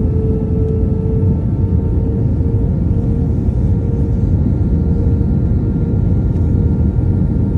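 Airplane engines droning steadily: a loud, constant low rumble with a steady hum on top.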